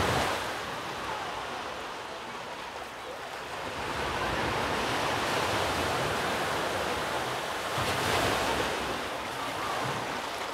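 Sea surf washing on the shore, swelling and easing in slow surges.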